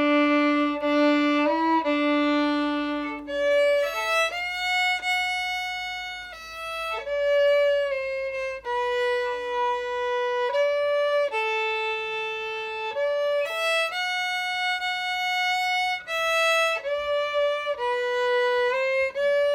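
Solo violin playing a slow melody, one note at a time, with notes held for about half a second to a second and a half.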